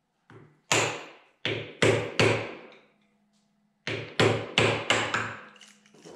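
Hammer blows on the fan shaft of a John Deere Model B tractor engine, driving the shaft forward toward the radiator. Two quick runs of about five strikes each, a little over a second apart, each strike ringing briefly on the metal.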